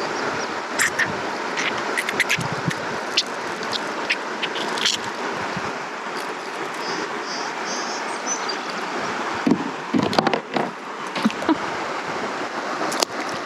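River water rushing steadily, with scattered sharp clicks and a few louder knocks near the end.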